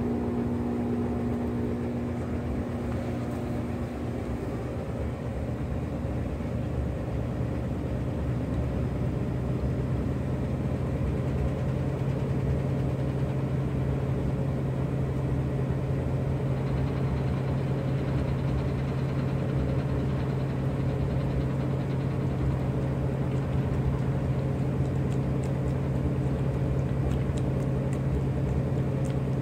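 Steady machine hum with a low droning tone. The drone shifts lower and grows stronger about ten seconds in.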